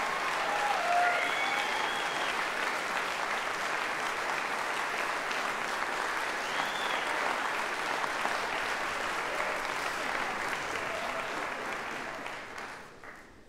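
Audience applauding at the end of a live brass band performance, with a few voices calling out over it; the applause fades out about a second before the end.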